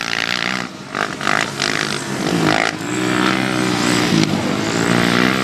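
Racing quad ATV engines revving, the pitch rising and falling as the quads accelerate and pass around the track, over a steady noisy rush.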